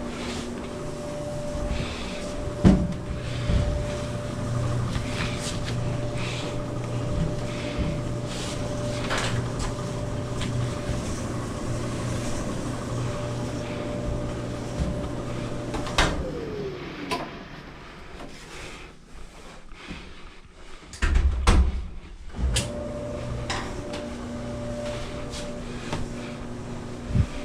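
Frigidaire electric dryer running with a steady motor hum, switched off about sixteen seconds in so the motor winds down in a falling whine; after some knocks and a thump it starts running again.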